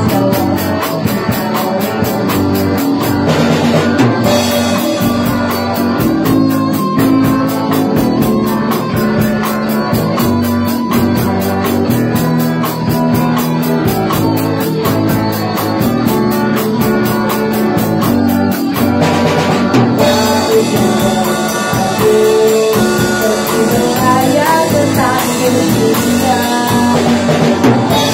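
Live band playing rock music: electric guitars over a drum kit keeping a steady beat.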